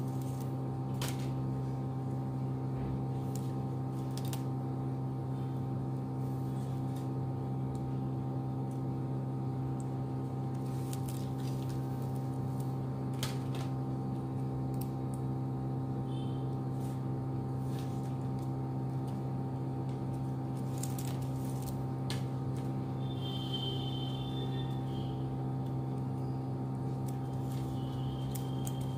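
A steady low electrical hum, with a few faint clicks and brief squeaks from plastic craft wire being handled and pulled through a knot.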